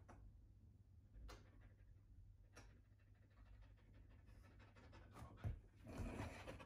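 A Siberian husky panting faintly. Near the end a thump and a rustle of movement as the dog jumps down off a leather sofa.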